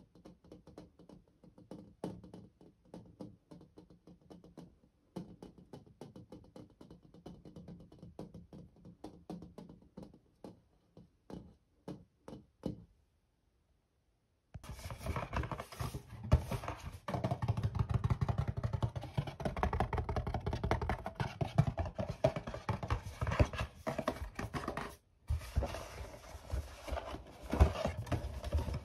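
Fingertips and nails tapping on a mirror's glass in quick, light, irregular taps. After a brief silence about halfway through comes much louder, denser tapping on a flat box.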